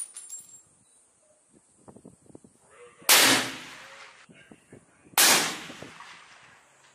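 Two sniper rifle shots about two seconds apart, each a sharp crack that rings on for about a second inside a concrete building. Faint clicks come before the first shot.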